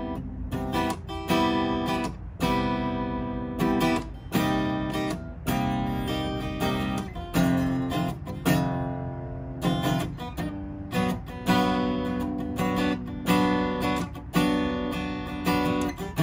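Taylor 110GB steel-string acoustic guitar being played freely, with chords strummed and picked one or two a second, each ringing on. The guitar is freshly restrung after a truss rod and bridge adjustment, played as a playability test.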